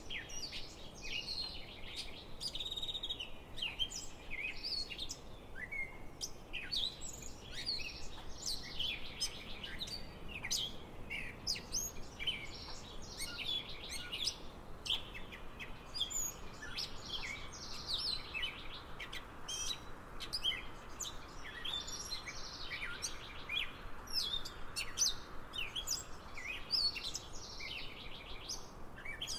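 Songbirds chirping and singing, a dense overlapping run of quick high chirps.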